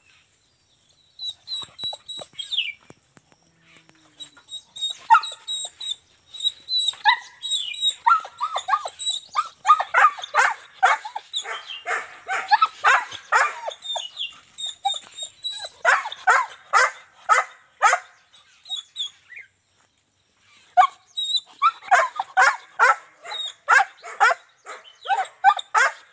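Young German shepherd barking and yelping in quick runs of short, high barks, breaking off for a couple of seconds about three-quarters of the way through before starting up again.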